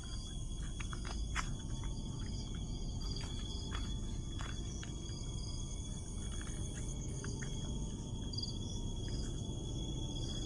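Night insects, crickets among them, trilling steadily in several high pitched layers over a low rumbling background, with scattered faint clicks.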